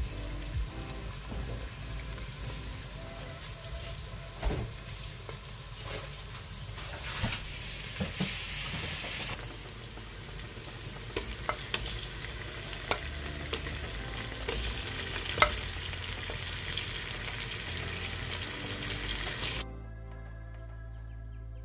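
Wooden spoon stirring and scraping in stainless steel pots of banku dough and okro stew, with scattered clicks and knocks against the pot sides, over a steady sizzling hiss from the stew cooking on the stove.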